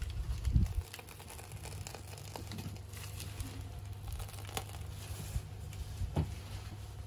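Plastic piping bag crinkling in gloved hands as whipped cream is squeezed out onto a crepe, over a low steady rumble. A low thump comes about half a second in, and a few light clicks follow later.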